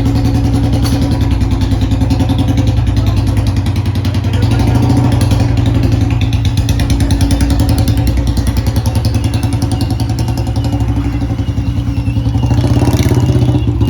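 Royal Enfield Bullet's single-cylinder four-stroke engine running with its steady, even firing beat, swelling a little about four seconds in and again near the end.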